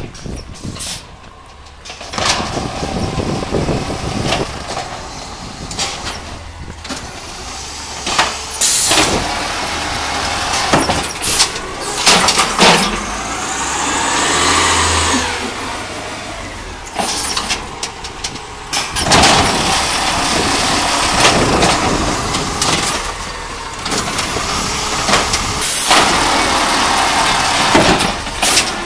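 Peterbilt 320 natural-gas garbage truck with an Amrep automated side-loader body, engine running as it pulls up to a curbside cart. Repeated clunks and knocks come from the truck and its arm, with a whine that rises and falls about halfway through.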